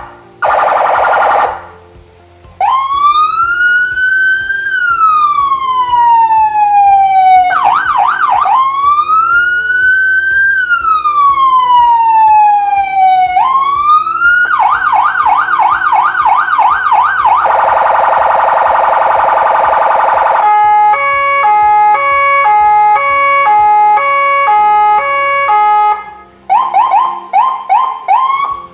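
Landun CJB150DA electronic siren through a Landun YHD150W 150 W speaker, stepping through its tones. It gives two short blasts, then two slow wails that rise and fall, with a brief fast warble between them. Then come a fast yelp, a harsh horn-like blare, a pulsing pattern of stepped tones, and the fast yelp again near the end.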